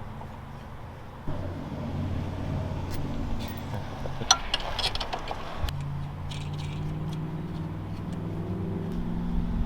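A motor or engine running with a steady low hum that comes in about a second in and shifts pitch about halfway, with a few sharp metallic clicks in the middle.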